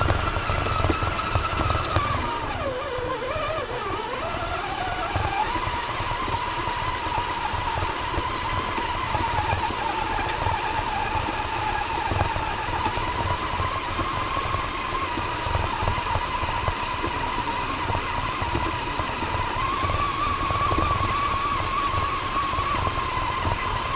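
Axial Honcho RC rock crawler's brushed electric motor and gear train whining steadily as it drives along gravel, heard from a camera mounted on the truck, over a constant low rattle and crunch of tyres and chassis on the stones. The whine dips in pitch briefly about three seconds in, then holds steady.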